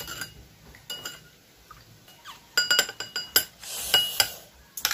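Metal spoon clinking against a small glass bowl while stirring soy sauce, vinegar and sugar to dissolve the sugar. There are a few single clinks, then a quick run of clinks about two and a half seconds in, and a couple more near the end.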